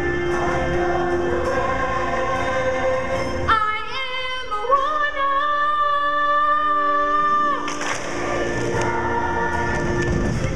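Youth choir singing with instrumental accompaniment. About three and a half seconds in, the voices hold one long note for about four seconds over a thinned-out accompaniment, then the fuller music comes back.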